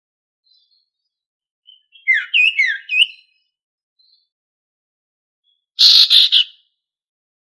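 A sirtu songbird calling. About two seconds in it gives a quick run of four short, sweeping whistled notes, and near six seconds a louder, harsh buzzy triple note. The gaps between the calls are silent.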